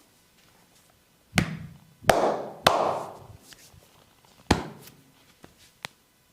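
Four loud, sharp smacks and cracks from a barber's hands during a head massage, coming at uneven gaps over about three seconds. The second is followed by about a second of rough rubbing noise. A faint click comes near the end.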